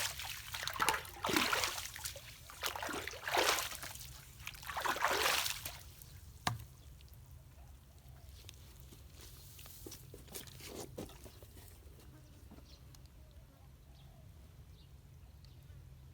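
Flood water sloshing and splashing in several surges as debris is worked loose from a clogged culvert, with a sharp knock about six seconds in. A second splash follows around ten seconds in, then a fainter trickle.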